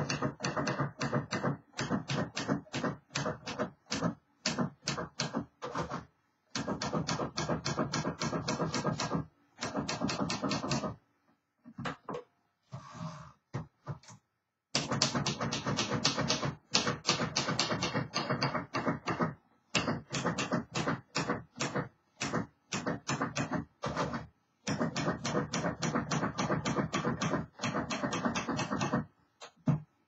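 Freshly refurbished 1951 Royal Quiet De Luxe manual typewriter being typed on: runs of rapid key strikes as the type bars hit the platen, in bursts of several seconds broken by short pauses, with a longer pause about halfway through.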